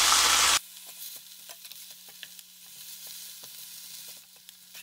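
Ground pork sizzling loudly in a frying pan for about half a second, then the sound drops abruptly to a low level: faint scraping clicks of a wooden spoon stirring chili flakes and sauces into the meat, over a steady low hum.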